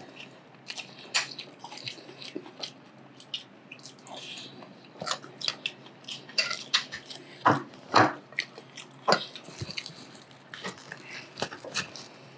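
Close-up eating sounds: a man chewing and smacking on mouthfuls of ahi poke and rice, with irregular wet clicks and a few sharper smacks about seven and a half and eight seconds in.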